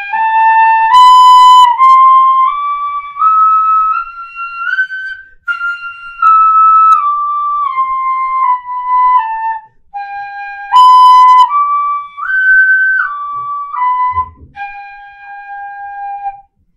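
Wooden pífano (Brazilian fife) in C playing a one-octave scale in G with a flat seventh, note by note up and back down, then running on into a G–B–D–G arpeggio up and down that ends on a held low G. The phrases are parted by short breaths.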